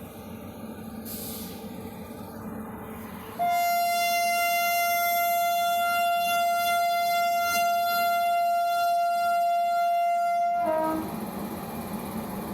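WAP-5 electric locomotive's twin-tone air horn sounding one long blast of about seven seconds, starting a few seconds in on a single steady high note and stepping briefly down to a lower note as it cuts off. A low rumble lies under it before and after.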